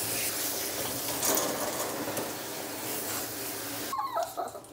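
Water spraying from a bath hose sprayer with a shampoo-dispensing attachment onto a small dog in a stainless-steel grooming tub, shutting off about four seconds in. Right after it stops, the small dog gives a brief high whimper.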